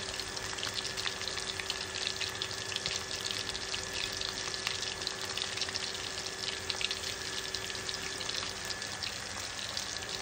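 Batter-coated prawns deep-frying in hot oil in an aluminium kadai: a steady, dense crackle and bubbling.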